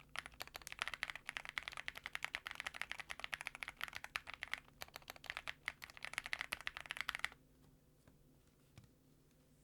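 Continuous fast typing on a Zoom65 mechanical keyboard with an aluminium case, polycarbonate plate, stock Ca Phe Sua Da linear switches and GMK keycaps: a dense run of keystroke clacks that stops about seven seconds in.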